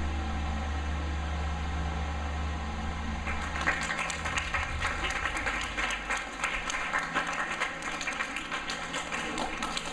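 A steady low electrical hum, then about three seconds in an audience breaks into applause that carries on as dense clapping.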